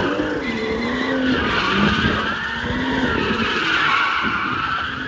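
BMW M2 drifting in a circle, its tyres squealing continuously with a wavering pitch. Underneath, the turbocharged straight-six's engine note rises and falls with the throttle.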